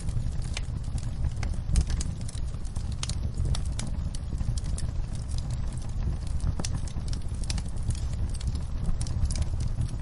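Wood fire in a fireplace crackling: irregular sharp pops and snaps over a steady low rumble of the burning logs, with one louder pop a little under two seconds in.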